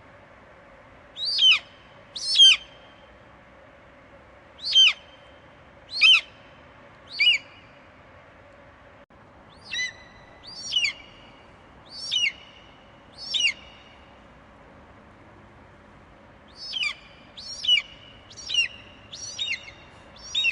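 Eagle screeching: about fourteen short, sharp calls, each falling in pitch, coming in loose groups of two to five with pauses between, over a faint steady hum.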